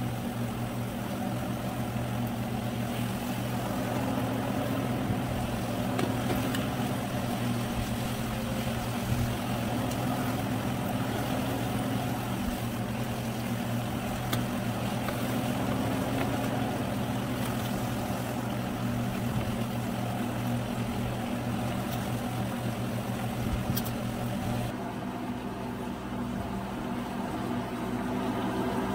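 Ripe plantain slices frying in shallow oil in a nonstick pan, a steady sizzle under a constant low hum. A few light clicks of metal tongs turning the slices come midway.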